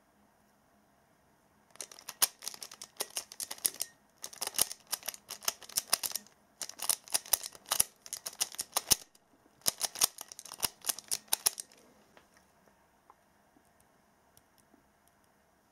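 Plastic Pyraminx puzzle being turned fast with finger tricks: four quick runs of rapid clicking and rattling, each about two seconds long, as last-layer algorithms are executed.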